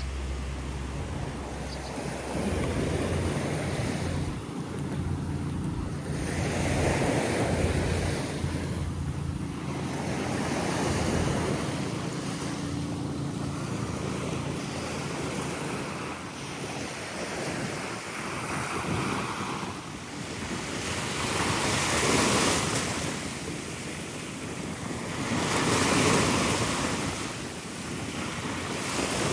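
Sea waves washing in and out, the surf swelling and fading every few seconds, with wind buffeting the microphone.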